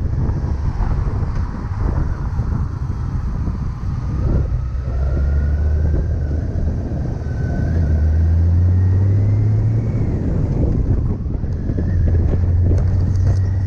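Motorcycle running at road speed, heard through heavy wind noise on the microphone. Its low engine drone rises in pitch from about a third of the way in, as the bike speeds up.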